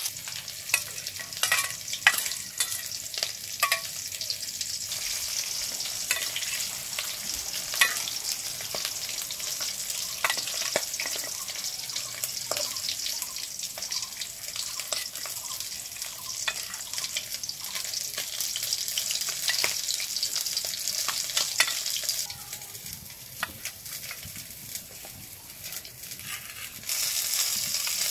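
Hilsa belly pieces sizzling in mustard oil in a wok, with sharp clicks and scrapes of a metal spatula as the fried pieces are lifted out. The sizzle drops for a few seconds near the end, then comes back louder.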